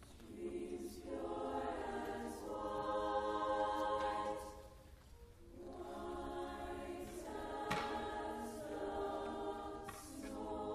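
High-school women's choir singing held chords of a choral piece, in two phrases with a short break about five seconds in.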